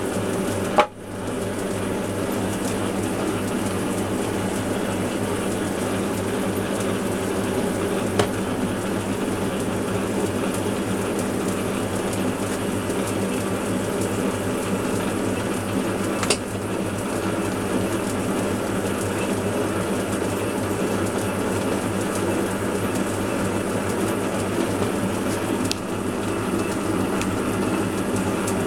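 Metal lathe running steadily, turning a bar down to size, with a few faint clicks.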